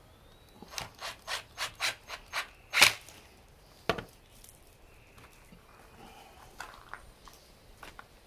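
Hand work on an angle grinder's housing during reassembly: a run of short scraping rubs, about four a second, then a louder scrape and a sharp click, followed by a few fainter knocks.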